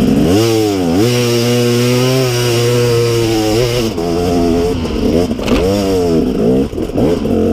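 Enduro dirt bike engine revving hard under load as it climbs out of a gully: the pitch sweeps up, holds steady for a couple of seconds, then rises and falls several times with the throttle.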